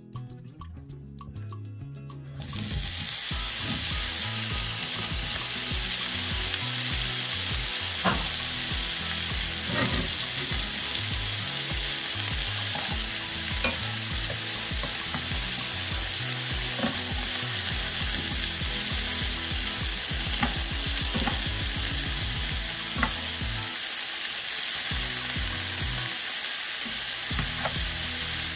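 Sliced chicken smoked sausage sizzling in hot oil in a nonstick skillet: the sizzle starts suddenly about two and a half seconds in as the slices go into the pan, then keeps up steadily, with scattered clicks of silicone tongs turning the slices against the pan.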